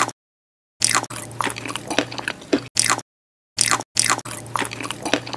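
Mukbang eating sound effects: several short clips of biting and chewing, each cut off sharply into dead silence before the next.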